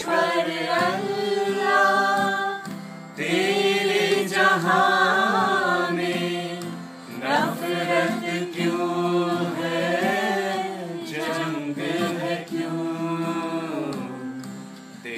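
A small group of voices singing a slow Hindi song together, with a strummed acoustic guitar underneath. The singing holds long notes, with short breaths between phrases.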